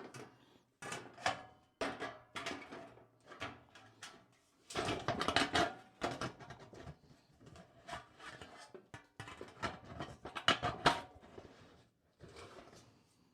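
Irregular handling noise from chimney liner sections being moved about: a string of knocks, scrapes and rustles, loudest about five seconds in and again near eleven seconds.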